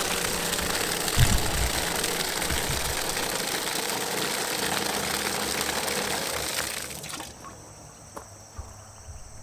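An old sump pump running and pumping water, a steady rush of water over a motor hum, with a low thump about a second in. About seven seconds in the sound drops away sharply, leaving only a few faint knocks.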